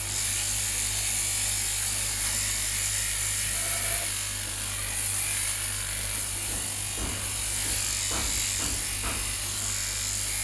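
Sheep-shearing handpiece on a flexible drive running steadily with a continuous buzz and low hum as it clips through a sheep's fleece, with a few brief clicks near the end.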